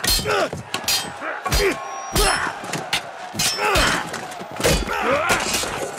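Spear-and-sword duel: a rapid series of sharp hits and swishes as a spear is spun and swung against an armoured swordsman, some with a brief metallic ring, mixed with short shouts and grunts of effort.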